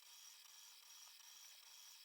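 Near silence: a faint, steady high-pitched hiss with a thin whine.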